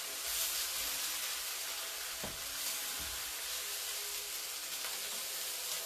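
Jackfruit cheesesteak filling with melting cheese sizzling steadily in a frying pan on the burner, with one faint tap about two seconds in.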